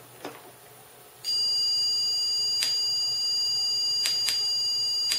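Small speaker driven by an 8002 class AB amplifier board playing a 16.3 kHz sine test tone. About a second in it comes on as a steady high whistle of several tones, with a few short clicks over it. The speaker isn't quite handling a tone this high.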